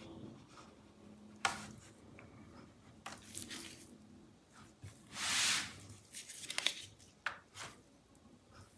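Plastic pry tool working along the seam of a laptop's bottom panel: several sharp clicks as the panel's clips pop free, and short scraping rushes of the tool along the edge, the loudest lasting about half a second, about five seconds in.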